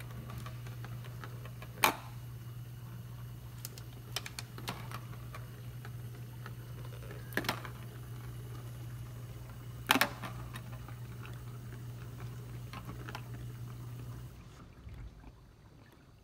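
Plastic ball knocking and clattering in the clear plastic track of a cat track toy as a cat bats at it: sharp knocks about two, seven and a half and ten seconds in, with lighter clicks between. A low steady hum runs underneath and stops about fourteen seconds in.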